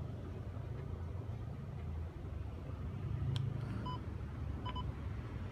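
Steady low rumble of outdoor background noise, with a sharp click about three seconds in and two short electronic beeps near the end.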